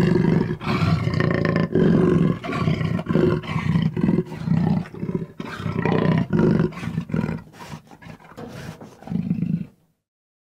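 Recorded roar from a toy dinosaur's sound feature: a string of repeated roars that grow shorter and fainter and stop shortly before the end.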